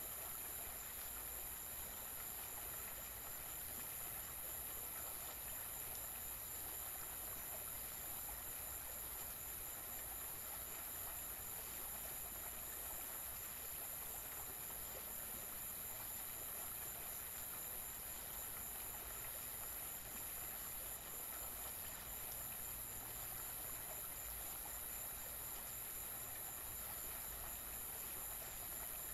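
A steady, high-pitched hiss with a thin whistling tone inside it, over a faint low hum.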